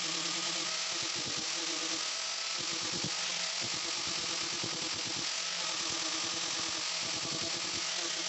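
Angle grinder fitted with a sanding disc running steadily as it grinds and shapes a wooden knife handle, a continuous motor whine under the hiss of the disc on the wood.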